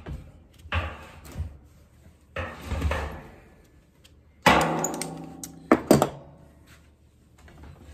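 Locking pliers knocking against a thin copper still pot while a fitting is threaded into its wall; the copper rings out after each knock. About half a dozen irregular metal clanks, the loudest about halfway through and a quick pair shortly after.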